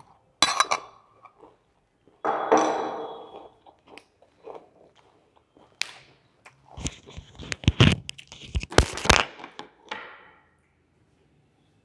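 Close handling noise: a sharp knock about half a second in, a scraping rustle around two and a half seconds, then a quick run of clicks and knocks between about seven and nine seconds.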